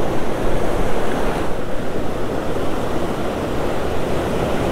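Ocean surf breaking and washing up the beach as a steady rush of noise, with wind on the microphone.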